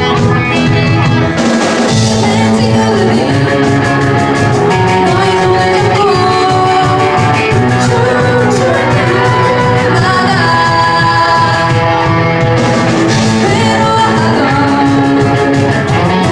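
Live rock band playing a pop song: a woman singing lead over electric guitars, bass guitar, keyboard and drums, with a cymbal crash about a second in and another near the end.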